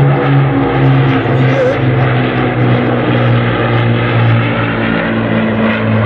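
Piston engines of a World War II formation, an Avro Lancaster bomber with a Hawker Hurricane and a Supermarine Spitfire, flying overhead. It is a loud, steady propeller-engine drone, with the Lancaster's four Rolls-Royce Merlins at its core and the pitch drifting slightly as the aircraft pass.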